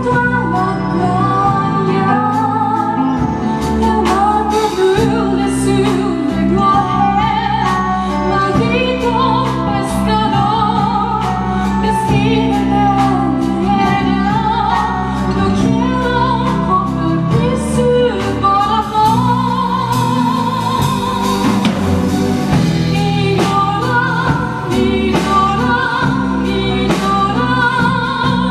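A female singer sings a slow song with vibrato on held notes, over a steady instrumental accompaniment.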